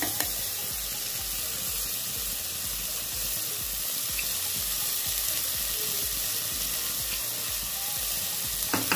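Washed moong dal sizzling steadily as it lands in hot oil and tomato masala in a pressure cooker. A few sharp knocks, the bowl tapped against the pot, come at the start and near the end.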